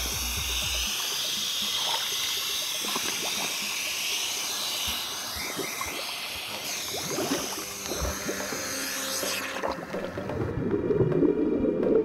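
Seawater sloshing and splashing close to the microphone as scuba divers at the surface sink under, a steady rushing hiss of churning water. About ten seconds in it stops and background music takes over.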